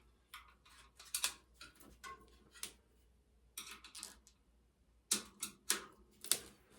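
Irregular light clicks and rustles of hands working a rubber rim strip into place on a spoked bicycle wheel rim, coming more often near the end.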